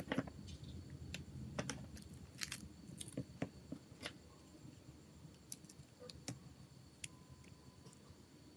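Irregular small clicks and light taps of a mobile phone's parts being handled during restoration work, denser in the first few seconds and sparser after.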